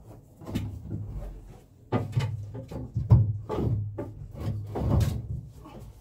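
Irregular knocking, scraping and rubbing of wood against metal as a block of wood is worked in under a marine diesel's turbocharger exhaust to support it. The strikes have a low boom to them, and the heaviest come about three and five seconds in.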